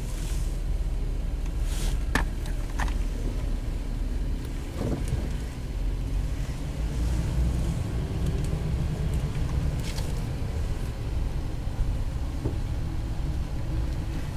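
Car driving slowly, heard from inside the cabin: a steady low engine and road rumble, with a few short clicks.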